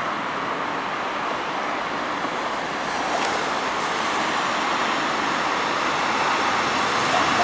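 Approaching Intercity train, its running noise growing slowly louder over steady road-traffic noise.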